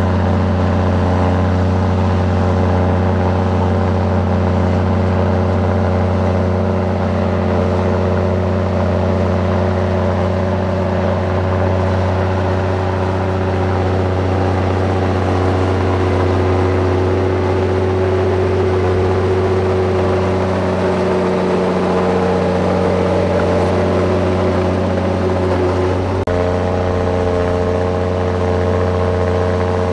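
Heavy construction machine's diesel engine running steadily under load, a deep hum with a constant drone above it; the tone shifts abruptly near the end.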